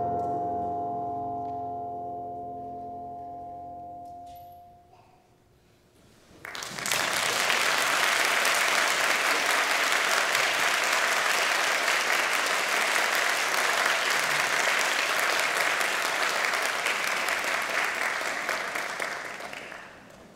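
A wind band's final held chord rings out and fades away over about four seconds. After a short silence, audience applause breaks out all at once, goes on steadily and tapers off near the end.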